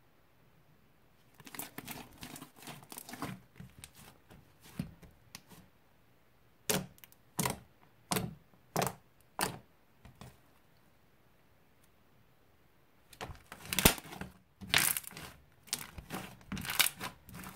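Slime being kneaded, poked and stretched by hand: sticky crackling and squelching in bursts, with a run of five separate pops in the middle as fingers press into it.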